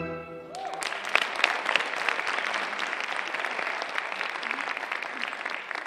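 Audience applauding, starting about half a second in as the recorded orchestral music stops, a dense spread of many hands clapping.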